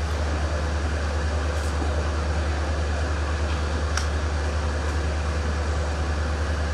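A steady low machine hum under a broad even rumble, unchanging throughout, with one faint click about four seconds in.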